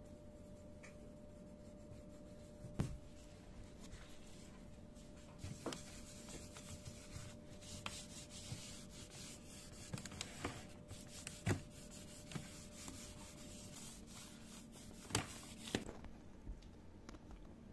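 A cloth rubbing beeswax polish onto the plastic case of an HP keyboard, a faint scrubbing hiss that starts a few seconds in and stops shortly before the end. A few light clicks of fingers and the cloth against the plastic break through it.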